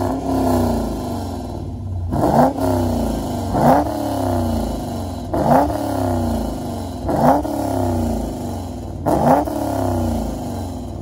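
2014 Chevrolet Camaro SS's 6.2-litre V8 idling through a full aftermarket exhaust with a Sirrush stainless steel muffler. It is revved in five quick throttle blips, about one every two seconds, each rising sharply and falling back to idle.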